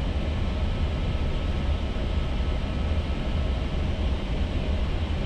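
Steady flight-deck noise of an Airbus A320 on short final approach: a strong low rumble under an even rush of airflow, with faint steady tones running through it.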